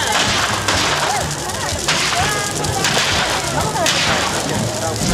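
A large burning effigy bonfire crackles steadily, with sharp cracks and pops about once a second. A crowd's voices and whistles carry faintly underneath.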